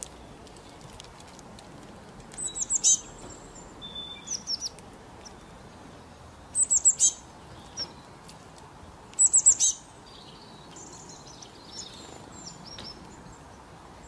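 Small songbirds calling: three bursts of four or five quick, high chirps, each under a second and a few seconds apart, with softer scattered high notes between, over a faint steady hiss.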